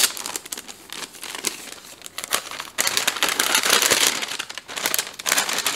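Yellow paper packet crinkling and rustling as it is handled and opened by hand, with many small crackles. It grows louder about halfway through.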